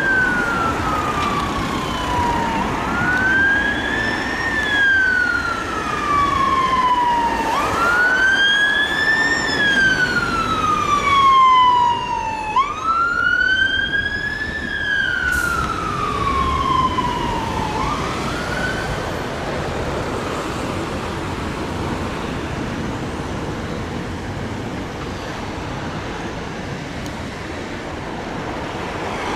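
Fire engine siren sounding a slow wail, each cycle a quick rise and a slow falling sweep about five seconds long. It stops about two-thirds of the way through, leaving steady road traffic noise.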